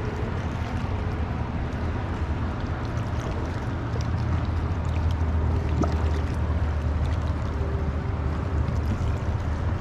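Water lapping against a fishing kayak's hull over a steady low rumble, with a few faint clicks.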